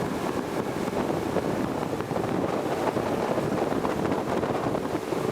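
Motorboat under way: steady engine and rushing water mixed with wind buffeting the microphone.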